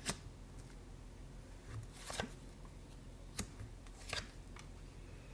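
Tarot cards being handled: a few soft, scattered card slaps and rustles, about four in all, over a faint low hum.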